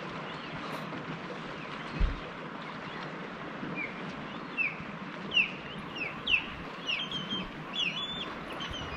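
Gulls calling, a run of short sharp calls about twice a second that starts a little before halfway, over a steady hiss of wind and water. There is a single low thump about two seconds in.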